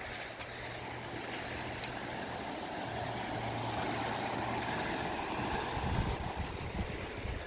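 Waves washing on the shore and wind on the microphone, with a steady low motor hum for the first five seconds or so. The wash swells and peaks about six seconds in.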